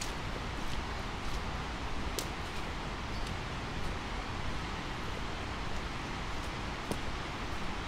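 Footsteps of a walker on an old tarmac road, faint and irregular, roughly one step every half-second to a second, over a steady rushing background noise.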